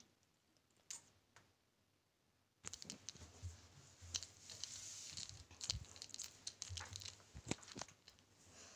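Faint rustling and crackling with scattered sharp clicks and a few soft low thumps, starting about two and a half seconds in after near quiet.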